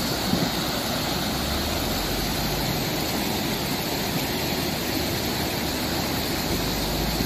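Flash floodwater rushing down a wadi in spate: a steady, unbroken rush of water noise with a low rumble underneath.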